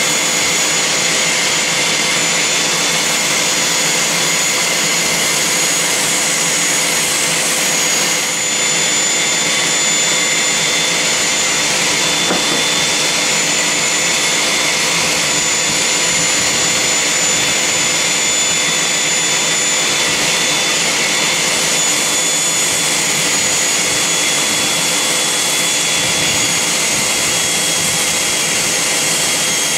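Porter-Cable 7335 random orbit sander with an 80-grit disc on a soft contour pad running steadily against the convex end grain of a wooden mallet head, its vacuum hose and a dust collector drawing air at the same time. A constant rushing noise with a steady high whine over it.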